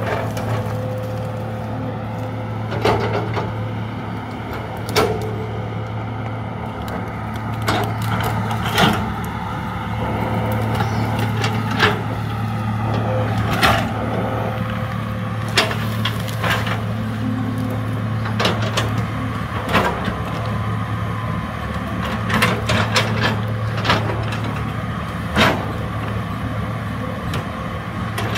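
Diesel engine of a hydraulic excavator running steadily under work, with sharp metallic knocks and clanks every second or two.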